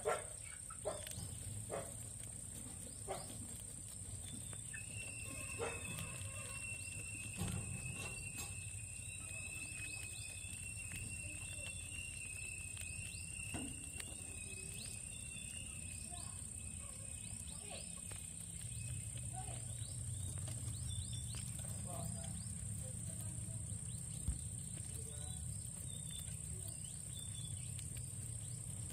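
Steady high-pitched insect chirring throughout, with a second, lower steady trill held for about thirteen seconds in the middle, and scattered small clicks and taps.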